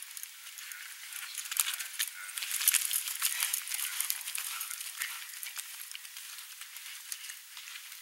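Hoofbeats of a horse galloping over dry, dusty ground, a rapid patter of sharp clicks that swells as the horse passes close, loudest about three seconds in, then fades.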